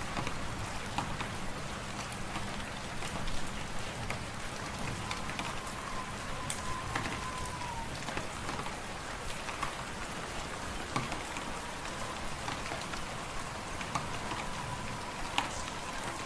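Wood fire crackling in a fireplace, scattered pops and snaps over a steady hiss, with a faint thin whistle that comes and goes.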